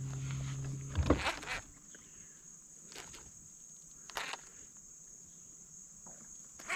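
Steady high-pitched insect chorus, with a low hum that stops about a second in and a few scattered knocks and clicks.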